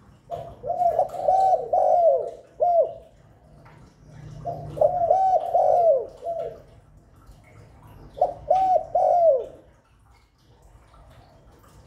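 Spotted dove cooing in three phrases of several notes each, the last phrase shorter. This is the bird's territorial call, as played to lure wild doves.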